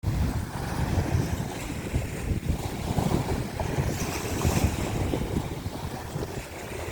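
Sea waves washing in, with wind buffeting the microphone in uneven low gusts; the hiss of the surf swells about four seconds in.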